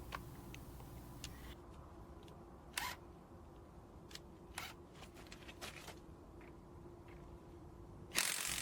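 A few faint, short clicks and knocks over quiet background noise. A steady hiss comes in near the end.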